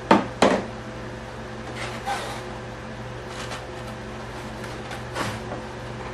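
Two sharp knocks right at the start, then a few softer clicks and brief rustles as small parts and tools are handled and set down on a workbench, over a steady background hum.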